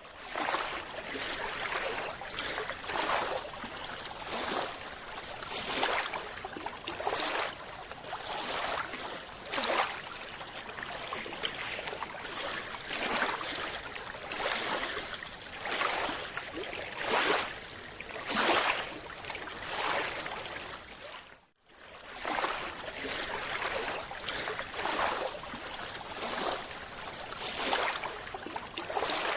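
Water swishing and rushing in repeated surges, one every second or so. It drops out briefly about two-thirds of the way through.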